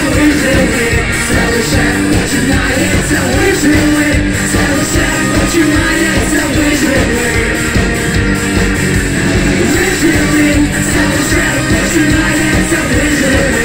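Live ska-punk rock band playing loud, with trumpet, trombone, guitar and keyboard, while a man and a woman sing into microphones.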